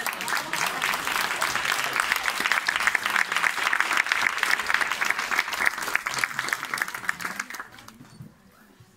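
Audience applauding, thinning out and dying away about eight seconds in.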